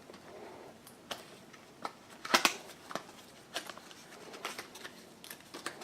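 A cardboard product box being picked up and turned over in the hands: scattered light taps, clicks and rustles, loudest about two and a half seconds in.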